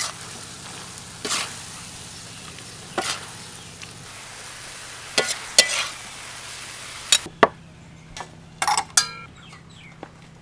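Beef, celery and chillies stir-frying in a wok: a steady sizzle, with the metal spatula scraping and knocking against the pan every second or two. About seven seconds in the sizzle stops and a few sharp clinks follow.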